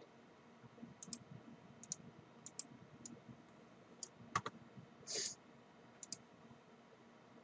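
Computer mouse buttons clicking, single and double clicks at irregular moments, with a short soft rush of noise about five seconds in.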